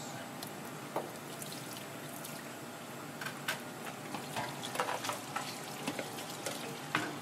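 Tap water running into a stainless-steel sink, with scattered light clicks and taps of wet handling from about halfway through.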